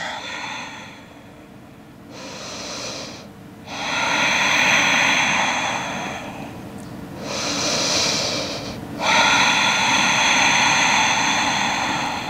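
A woman breathing slowly and deeply in and out while holding a seated forward-fold stretch. The breaths are long and clearly audible, about two full in-and-out cycles with short pauses between them.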